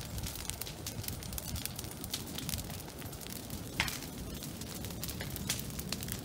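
Large bonfire of a couch and green brush burning: frequent sharp crackles and pops over a steady low rumble, with one louder pop just before four seconds in.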